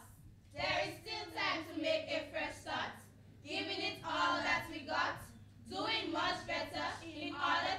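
A group of schoolgirls singing together in unison, in phrases of about two seconds with short breaks between them.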